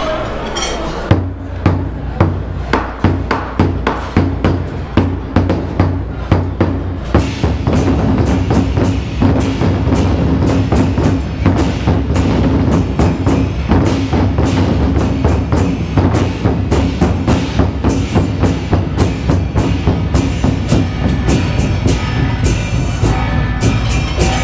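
Ensemble of large Chinese barrel drums (tanggu) struck with wooden sticks in a steady rhythmic beat, the strikes growing denser about seven seconds in, over sustained low tones.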